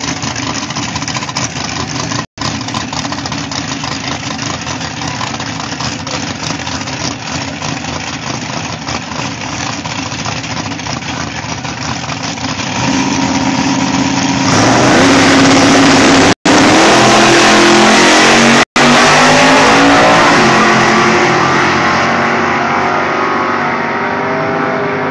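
Two drag-racing cars, a 1969 Camaro with a small-block Chevy V8 and a Chevy Nova, idling at the starting line, then revving and launching at full throttle about 14 seconds in. The engine note climbs in steps through the gear changes and fades as the cars run away down the strip. The sound cuts out for an instant twice during the run.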